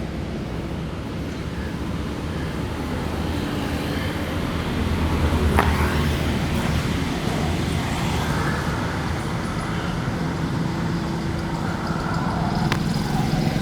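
Road traffic with vehicle engines running steadily. There are two sharp clicks, one about halfway through and one near the end.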